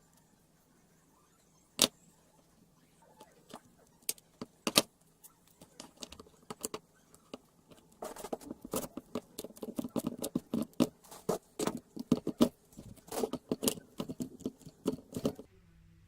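Small hard objects clicking and knocking: a few separate sharp clicks at first, then a dense run of rapid clattering knocks for about seven seconds that stops abruptly near the end.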